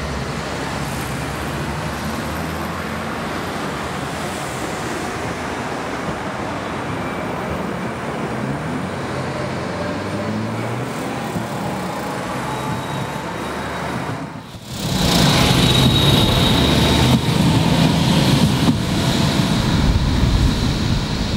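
Low-floor electric tram running on its rails, a steady rolling rumble mixed with road traffic. About two-thirds of the way through the sound jumps louder to a closer tram rolling along track, with a thin high whine over the rumble.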